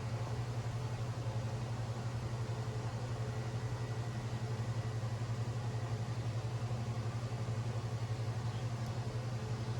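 Steady low mechanical hum with a fast flutter, unchanging throughout.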